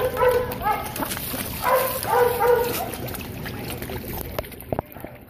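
An animal calling in two short runs of yelps, about two seconds apart, over a steady wash of churning water.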